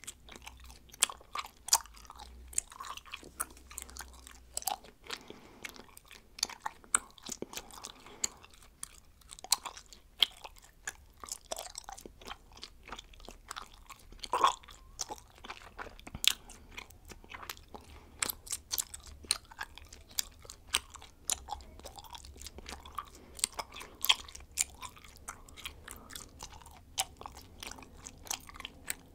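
A person chewing bubblegum close to the microphone: irregular sharp clicks and smacks of the mouth, a few a second, with one louder snap about halfway through.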